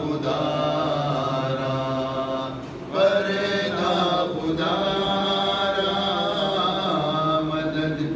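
A man's solo voice chanting a munajat qasida, unaccompanied, in long held, wavering lines. He breaks off briefly for breath near three seconds in, then takes up the line again.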